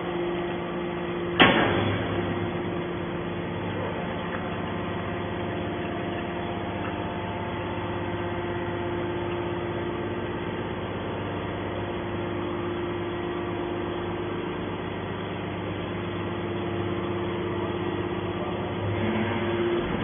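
Hydraulic metal scrap baler running with a steady hum from its hydraulic power unit as the ejection ram pushes a compressed bale of scrap out. A single sharp metallic knock about a second and a half in.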